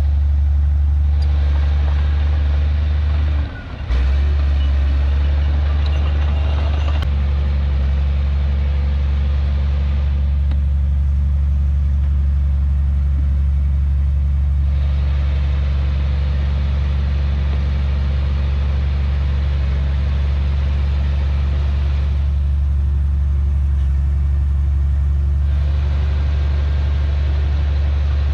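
Heavy diesel engine of earthmoving machinery running with a steady low drone, briefly dropping off about three and a half seconds in.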